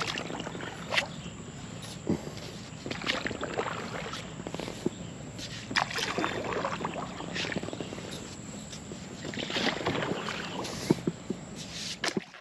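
Kayak paddle splashing and dripping in shallow water, with irregular splashes and light knocks against the hull.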